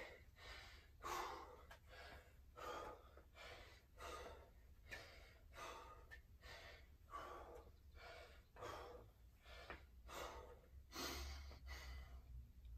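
A man breathing hard and fast after strenuous exercise. He pants faintly and rhythmically, about two breaths a second, as he catches his breath.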